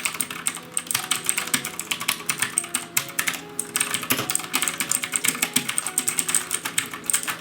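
Rapid typing on a Redragon K552 mechanical keyboard with Outemu Blue switches: a fast, uneven run of loud, sharp clicks from the clicky blue switches, with a brief pause about three and a half seconds in.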